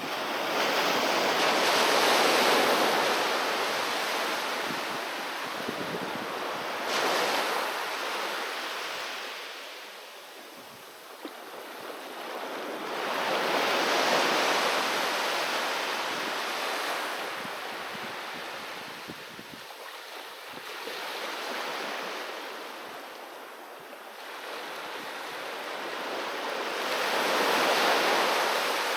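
Sea waves breaking on the shore and washing back, surging and fading in a slow rhythm, a wave about every six or seven seconds, with one sharper crash about seven seconds in.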